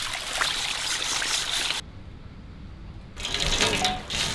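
Water pouring and splashing onto a large metal tray, poured from a pot. The pouring cuts off abruptly a little under two seconds in, leaving a quieter gap of about a second and a half, then comes back louder near the end.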